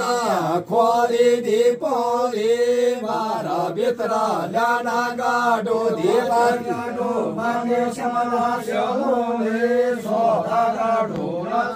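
Voices chanting a Garhwali jagar, the ritual devotional song sung to call a deity, as an unbroken melodic chant over held notes.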